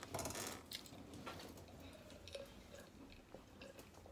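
A glass mason jar of water rattling briefly as it is picked up, then faint sips and swallows as the water is drunk.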